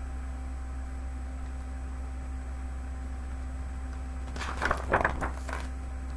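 A steady background hum, then about four seconds in a page of a large picture book is turned: a quick paper rustle and flap of several strokes lasting about a second.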